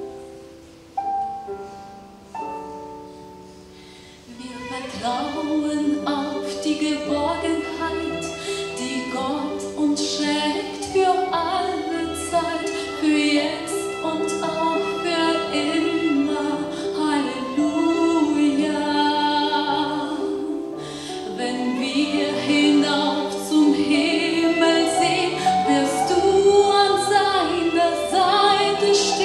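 A woman singing into a microphone over instrumental accompaniment. The accompaniment plays alone at first, and her voice comes in about four seconds in.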